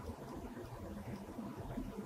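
Quiet room tone: a low rumble with a faint steady hum and no distinct sound events.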